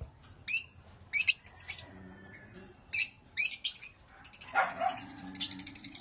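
Fischer's lovebirds calling: about six short, shrill calls spaced through the first few seconds, then a burst of rapid, overlapping chattering from about four and a half seconds in.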